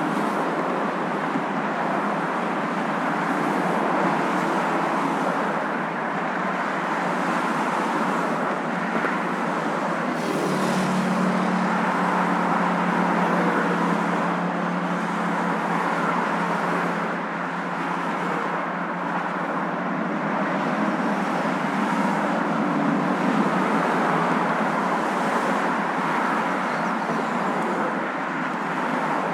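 Steady hum and road noise of a moving car, with no deep rumble. A low droning tone comes in about ten seconds in and fades over the next several seconds.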